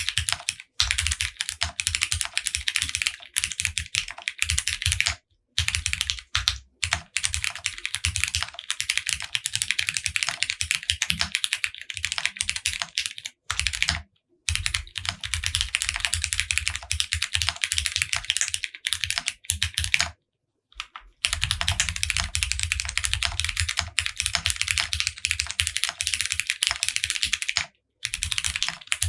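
Fast, steady typing on an OwLab Spring mechanical keyboard: lubed Cherry MX Brown tactile switches on 55g springs, a polycarbonate plate with plate and case foam, and GMK keycaps clacking. The typing breaks off for a second or less a few times.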